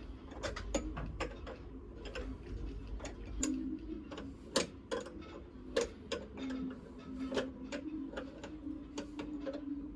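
Sharp metallic clicks, a few a second and uneven, as nuts are tightened down on a boat's sea strainer lid with hand tools. A steady low hum runs underneath.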